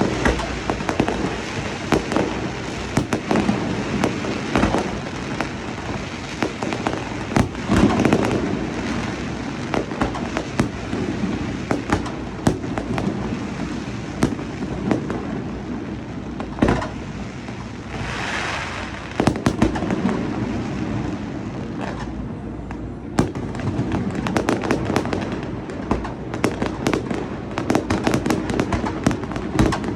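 Fireworks display: a rapid, continuous string of sharp bangs and pops, several a second, with a short hissing crackle swelling up about 18 seconds in.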